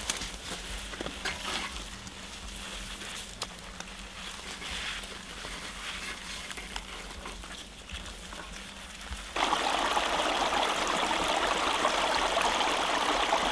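Faint scattered clicks and rustles. About nine seconds in, a steady rush of running water starts abruptly.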